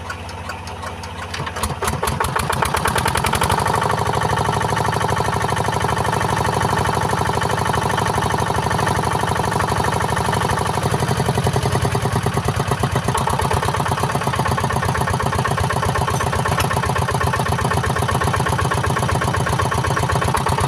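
Yanmar diesel engine, repaired for a compression leak, picking up speed about two seconds in from a slow run, then running steadily and evenly at a higher speed.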